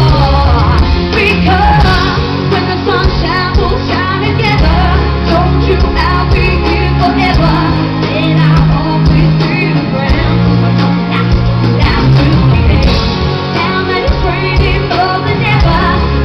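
Live pop music played loud in a large hall: singing over a backing track with a heavy, steady bass beat.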